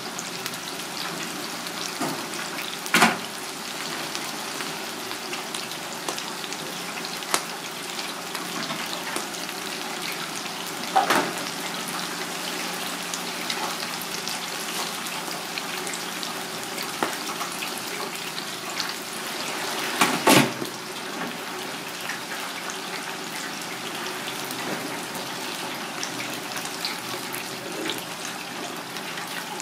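Tempura-battered pieces deep-frying in a fryer of hot oil: a steady crackling sizzle. A few sharp knocks stand out over it, a few seconds in, near the middle and about two-thirds of the way through.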